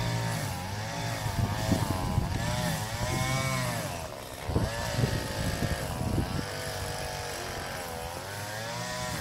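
A small engine revving up and down over and over, its pitch rising and falling about once a second, with low rumbling knocks near the microphone through the middle of the stretch.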